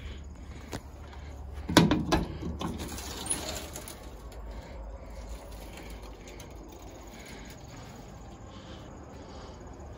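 A few sharp knocks and clatter about two seconds in, the loudest sound, from handling the metal cab and compartment of a work truck. Otherwise a low steady rumble of wind and handling noise on the microphone.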